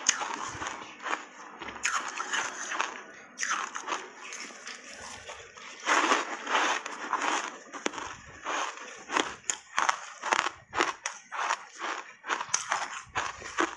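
Close-miked crunching and chewing of ice coated in matcha powder: a run of sharp crunches, with a loud dense spell about six seconds in and quicker, evenly spaced crunches near the end.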